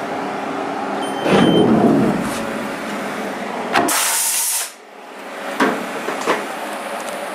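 Haas VF-2 CNC vertical mill at the end of milling the eye slot in a paintball marker body: machine running with a louder burst of cutting noise about a second in, then a short loud hiss about four seconds in, after which it runs quieter.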